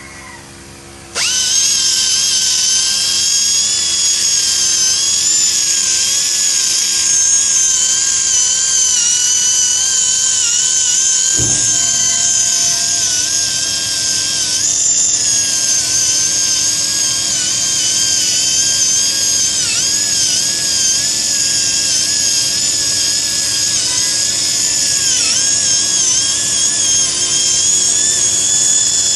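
A handheld right-angle-head polishing grinder on a hose starts up about a second in and runs at high speed with a steady high-pitched whine, its pitch dipping slightly now and then as it works the steel mold cavity. One sharp knock about halfway through.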